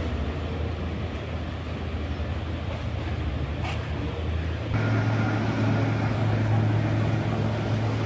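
Steady low engine hum, with a single short click about halfway through; just under five seconds in the hum abruptly steps up to a louder, slightly higher drone.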